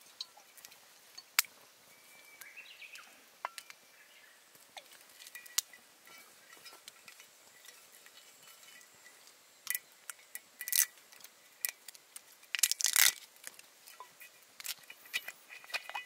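Ice cubes in a camp cup crackling and snapping as they sit, with scattered sharp clicks and a denser, louder burst of crackling about three quarters of the way through.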